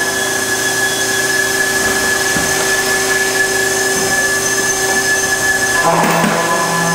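Amada CM-100-AN CNC production cut-off saw running: a steady mechanical hum with a high whine held on one pitch. A brief rattle comes about six seconds in.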